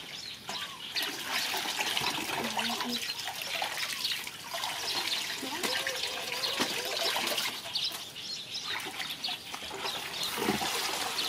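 Water splashing and trickling in a concrete fish tank as plastic baskets are dipped and lifted to scoop fish, with scattered short pitched calls over the steady hiss.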